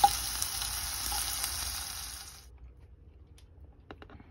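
Hot dog pieces sizzling in oil in a frying pan with diced onion and green pepper, with a sharp clink of a fork against the pan at the start. The sizzle cuts off suddenly about two and a half seconds in, leaving only a few faint ticks.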